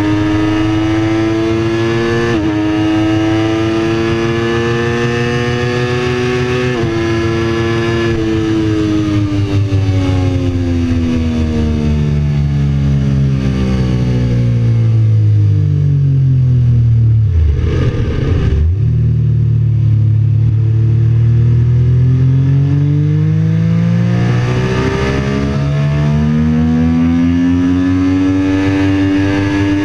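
A sport motorcycle's engine, heard from onboard at track speed. The engine note climbs with two brief gear-change dips, then falls steadily to its lowest just past the middle as the bike slows, and climbs again as it accelerates.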